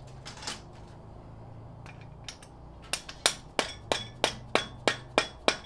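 A regular run of light hammer taps, about nine, at roughly three a second, starting about three seconds in. They drive a piston wrist pin home in a VW air-cooled engine until it is fully seated.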